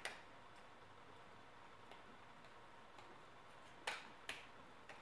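Clear acrylic Raspberry Pi case pieces clicking as a side panel is pressed onto the base's tabs: a sharp click at the start, then two quick clicks close together near the end, with faint small ticks of plastic handling between.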